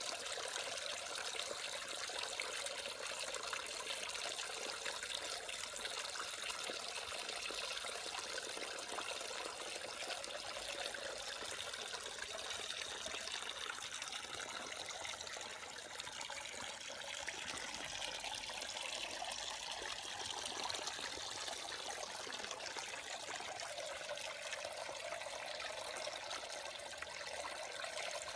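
Water from a small garden waterfall splashing and trickling steadily into a pond.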